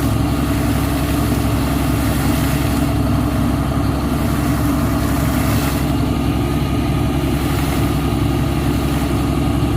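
ELGi borewell air compressor and its engine running steadily, an even, loud, low drone.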